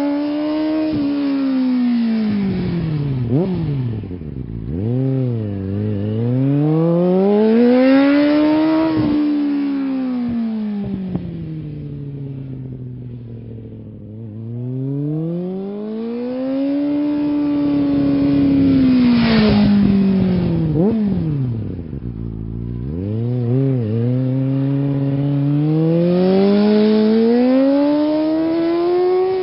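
An engine revving up and down, its pitch climbing and falling in long slow sweeps several seconds apart, with quick drops and blips in between.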